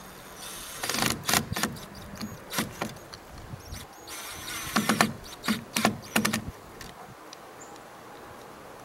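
Cordless drill run in short trigger bursts into the wooden gate beam: one cluster about a second in and a longer run of quick pulses from about four to six and a half seconds in.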